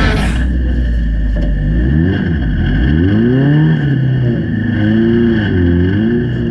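Off-road race vehicle's engine running, then from about two seconds in revving up and down several times as it is driven hard, over a steady high whine.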